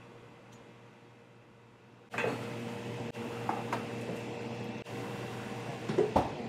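Steady machine hum in a bakery workroom that comes in suddenly about two seconds in, with a few light taps and a sharper knock near the end.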